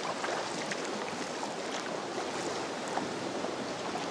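Sea water splashing and lapping steadily around a sea kayak as it is paddled, with small drips and splashes from the paddle blades.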